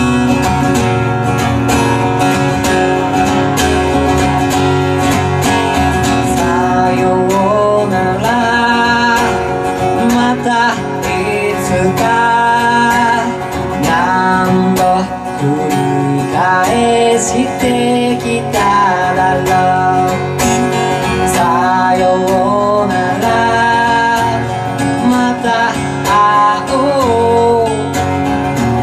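Two acoustic guitars strummed in a live song, with a sung melody coming in about six seconds in and carrying on over the strumming.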